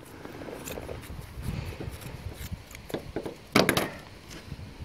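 Fibreglass matting being cut and handled: scattered rustling and scraping, with one louder short noise about three and a half seconds in.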